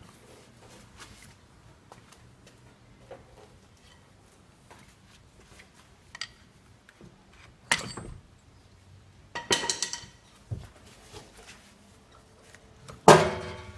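Metal clanks as a Land Rover Discovery 3's propeller shaft is levered off its flange with a screwdriver and taken down: a sharp clank about eight seconds in, a rattle of clanks around ten seconds, and the loudest clank near the end, which rings briefly.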